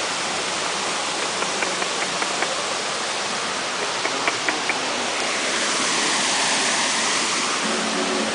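Waterfall pouring, a steady rushing hiss of falling water that swells louder about two thirds of the way in. A few light clicks sound over it in the first half.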